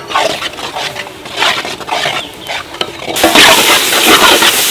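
A spatula scraping and stirring onion-tomato masala in a kadai, the chilli and coriander powder just added, in short separate strokes. About three seconds in, a louder, steady frying sizzle takes over as the masala is turned in the hot pan.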